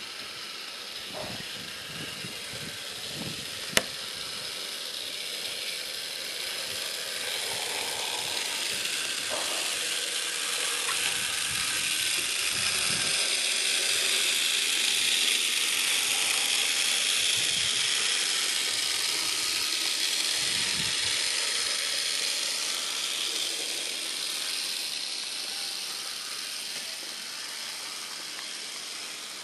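Model railway track maintenance vehicle running along the track, its small motor and gears whirring, growing louder as it nears and passes, then fading. A single sharp click about four seconds in.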